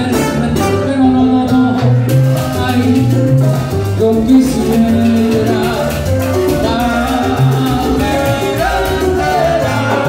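Salsa band playing live, with Latin percussion (congas, timbales, bongos), keyboard and trombone over a steady driving rhythm.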